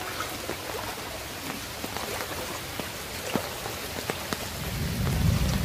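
Steady rain falling on floodwater and foliage, with many sharp drips close by. A low rumble swells near the end.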